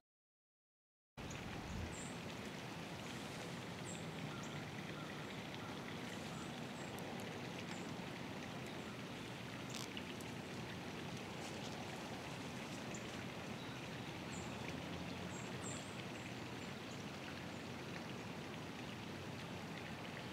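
About a second of silence, then steady faint outdoor background hiss with a few faint short high chirps and clicks scattered through it.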